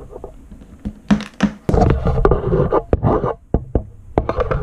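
Handling noise of a small USB key-fob cable: a run of taps, knocks and scratching as it is handled and its connector is plugged in, busiest in the middle.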